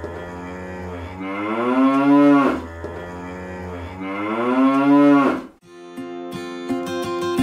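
Cow mooing twice, two long calls of about two seconds each that rise in pitch and then hold. Strummed acoustic guitar music comes in near the end.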